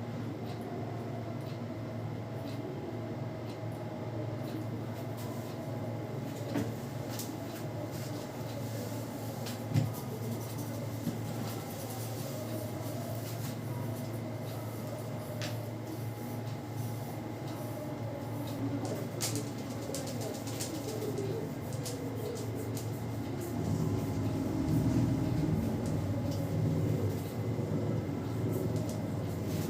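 Hands working over a person's head and hair in a head massage: rubbing and rustling with many small scattered clicks and crackles, over a steady electrical hum. The rubbing grows louder near the end.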